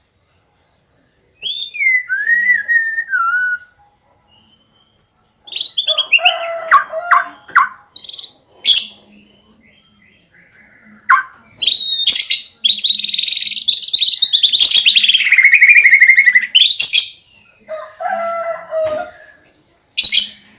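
White-rumped shama singing: varied whistled phrases with gliding notes, separated by short pauses, and a long, fast, canary-like trill of about five seconds in the middle. The song is filled with learned canary phrases, the kind used to trigger other shamas into singing.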